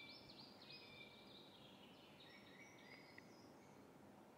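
Faint birdsong: a steady run of short, high chirps and twittering notes over near silence.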